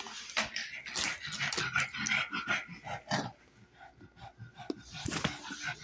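A small dog's quick, uneven breathing and snuffling sounds close to the microphone, with a faint whine.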